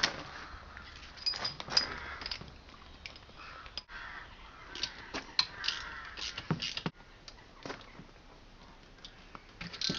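Spanner loosening steel engine-mount bolts: short bursts of metal clicks and scrapes, a cluster about a second in and another around the middle.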